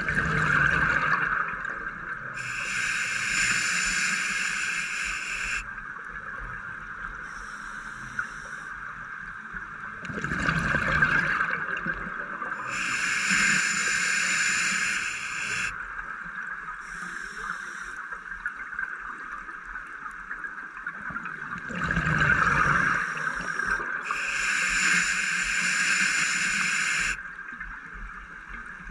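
Scuba diver breathing through a regulator underwater, three full breaths about eleven seconds apart: each is a burst of exhaled bubbles followed by a few seconds of hissing inhalation through the demand valve. A steady hum sits underneath.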